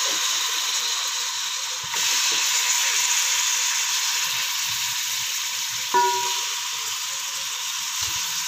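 Raw chicken pieces sizzling in hot oil and chilli-turmeric masala in a cooking pot, a steady hiss that grows louder about two seconds in. About six seconds in there is a short ringing clink.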